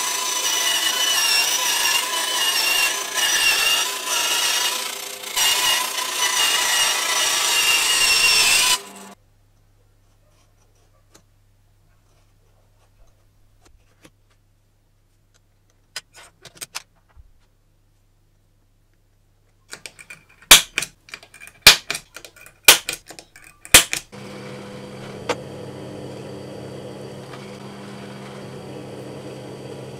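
A bandsaw cuts through aluminium sheet with a loud, steady, high-pitched metallic whine that stops about nine seconds in. After a few faint ticks, a quick run of loud sharp clicks comes just past the twenty-second mark. Then a drill press motor starts and runs steadily.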